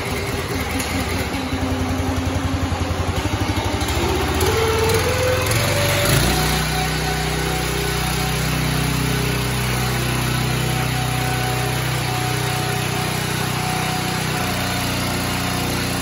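Honda 9 hp single-cylinder engine on a log splitter running at low speed, rising in pitch over about two seconds midway, then running steadily at a higher speed.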